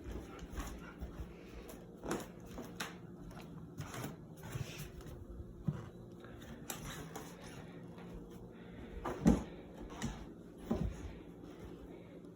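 Scattered knocks and thumps from a game of fetch with a dog and a ball on a hard floor, the loudest about nine seconds in. A faint steady hum runs underneath.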